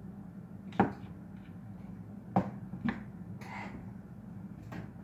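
A few short, sharp clicks or knocks, irregularly spaced, over a steady low hum.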